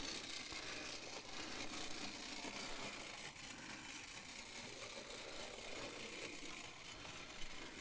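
Faint, steady whirring of a Hornby clockwork Thomas tank engine, its wound-spring gear train turning the wheels as it runs along the model track.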